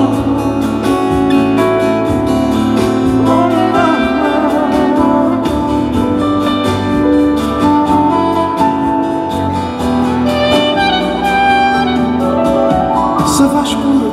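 Live band playing an instrumental passage between sung verses: held, wavering melody notes over steady accompaniment.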